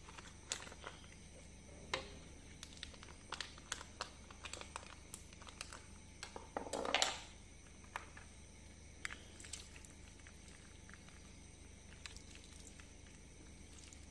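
A plastic milk pouch being handled: scattered crinkles and light clicks, with one longer, louder rustle about seven seconds in, then only an occasional click.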